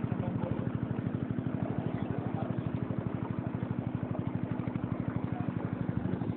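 Small boat's engine running steadily, a fast even putter of around ten beats a second.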